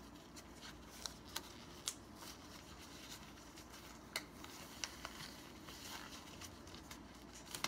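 Faint rustling and a few light clicks of small objects being handled, over a low room hum.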